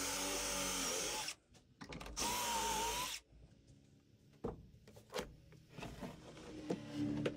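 Cordless drill boring pocket holes into plywood through a pocket-hole jig: two bursts of drilling, the second with a wavering whine, ending about three seconds in. Then scattered light knocks and clicks as the jig's clamp is worked and the panel handled.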